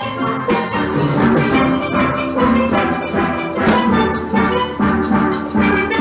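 Steel band playing: steelpans strike a quick rhythmic run of chords and melody notes over drum percussion.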